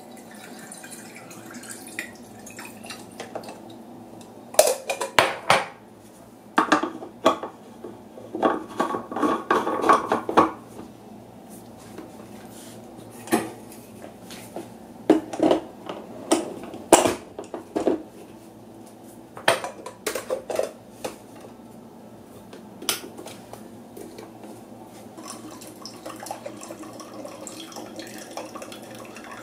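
Portafilter and glass carafe of a small home espresso machine being handled and set in place: a series of sharp clicks and knocks of metal and glass. Near the end the machine starts brewing with a faint steady hiss and drip.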